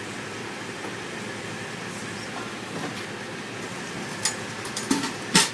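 Food truck kitchen noise: a steady rushing background, then a few sharp clicks and clatters in the last second and a half, the loudest just before the end.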